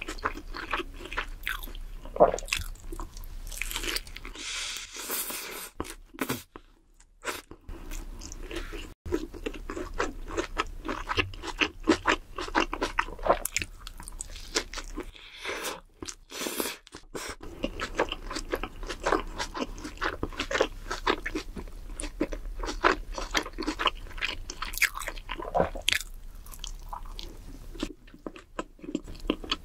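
Close-miked crunching and chewing of a fast-food burger and crispy fried sides, bite after bite with many irregular crisp crackles.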